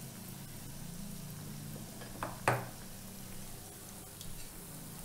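Mysore bondas deep-frying in hot oil in a steel bowl, a steady sizzle. Two sharp knocks a fraction of a second apart come a little past two seconds in, the second the loudest.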